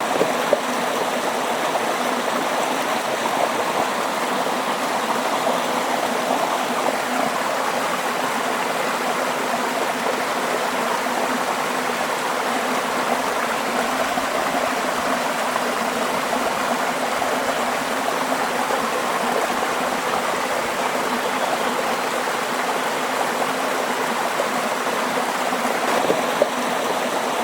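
Running water flowing steadily, an even continuous rush with no breaks.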